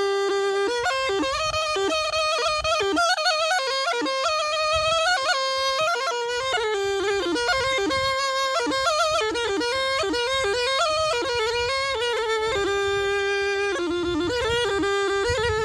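Zurna, a Turkish double-reed shawm, playing a fast, heavily ornamented folk melody. It holds one long note at the start and returns to it about three seconds before the end.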